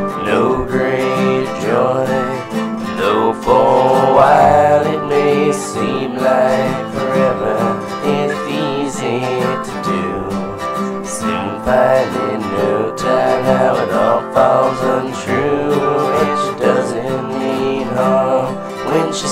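Country-style song with acoustic guitar in an instrumental passage: a lead melody line bending in pitch over steady guitar chords.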